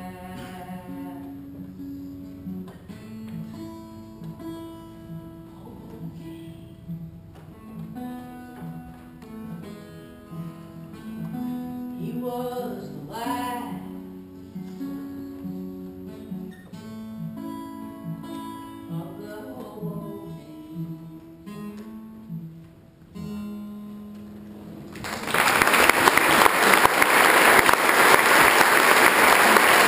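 Acoustic guitar playing the closing bars of a folk song, with a few sung notes along the way. About 25 seconds in, the audience breaks into loud applause as the song ends.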